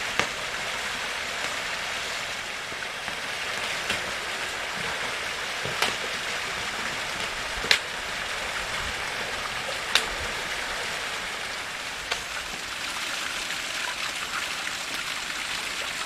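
Small waterfall splashing steadily into a shallow pool, with several sharp cracks of wood snapping at a crackling campfire of sticks, about two seconds apart.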